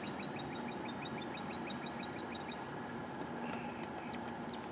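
A bird chirping in a rapid, even series of short high notes, about five a second, that stops a little past halfway, over steady outdoor background noise.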